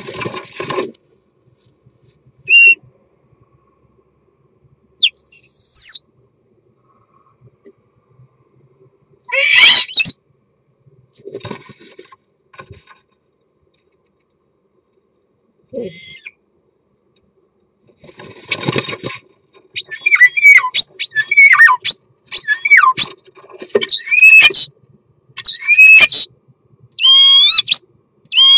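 European starling's courtship song, heard close up inside a wooden nest box. The first part has a few falling whistles and short noisy bursts. From about two-thirds of the way in comes a continuous run of song phrases with gliding whistles and clicks, roughly one phrase a second.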